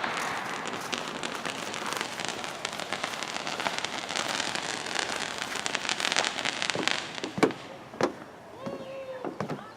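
Fireworks going off: a long, dense crackle of many small rapid reports, then a few separate sharp bangs near the end.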